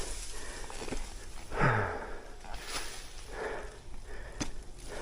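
A rider's heavy breathing and sniffing during a hard enduro climb, with a short falling sound about one and a half seconds in and a couple of sharp knocks near the end.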